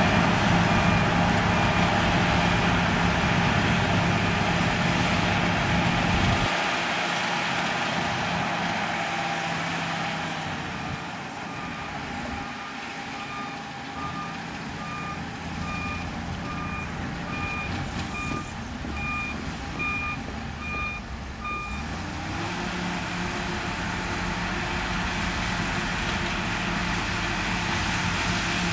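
Heavy diesel earthmoving machinery running at a sand-fill site, with a reversing alarm giving a steady run of repeated beeps for about ten seconds in the middle. The engine's deep rumble fades about six seconds in and comes back strongly a few seconds before the end.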